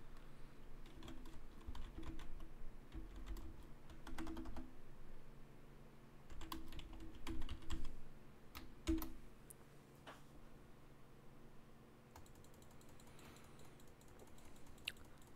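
Typing on a computer keyboard: a run of uneven keystrokes for about ten seconds, then it stops.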